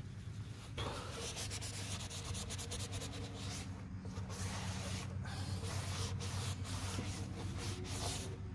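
Paper towel scrubbing over a black plastic kayak bulkhead, wiping off plastic cleaner before gluing: a continuous scratchy rubbing that starts about a second in, over a steady low hum.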